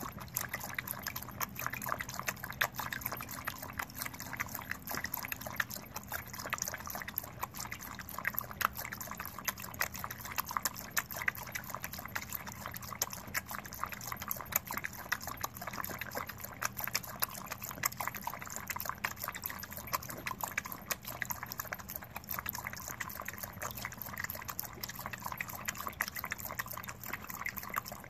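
A dog lapping water from a stainless steel bowl: a rapid, steady run of wet splashy laps.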